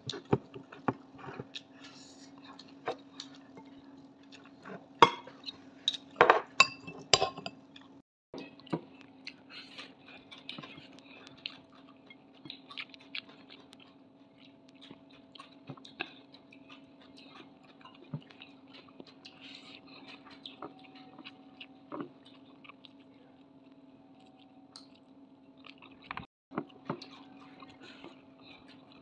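Close-up eating sounds of a person eating rice and food by hand: chewing and mouth clicks, with several sharper knocks and clinks against a plate in the first seven seconds. A steady low hum runs underneath.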